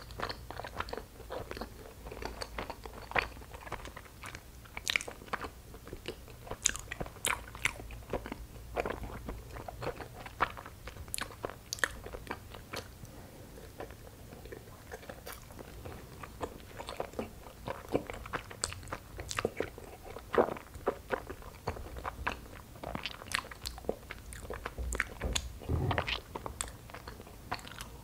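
Close-miked chewing of soft, chewy injeolmi rice cake with a cream cheese filling: irregular wet, sticky mouth sounds and small clicks as the cake is bitten and chewed.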